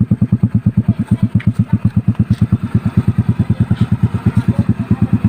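Yamaha Mio i 125 scooter's single-cylinder four-stroke engine idling through an open, muffler-less exhaust pipe. It gives a steady, even beat of loud exhaust pulses, about ten a second, with no revving.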